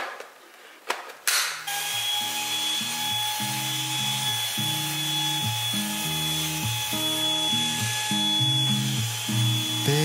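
A few clicks of handling, then a cordless stick vacuum switches on about a second and a half in and runs with a steady high whine, over soft background music.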